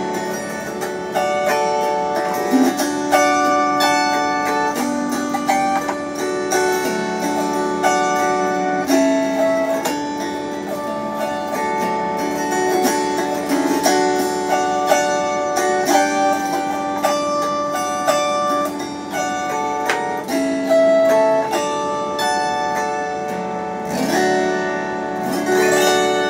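Freshly tuned autoharp strummed in a steady rhythm with the chord bars held down, the ringing chords changing every second or two.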